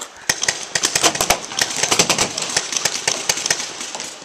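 Paintball markers firing in quick strings of sharp pops, several shots a second.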